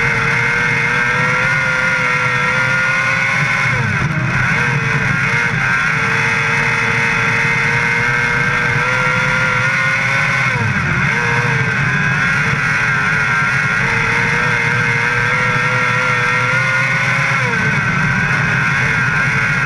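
Onboard sound of a non-wing sprint car's engine running at high revs at racing speed, its pitch holding high along the straights and dipping sharply three times as the driver lifts off for the corners before getting back on the throttle.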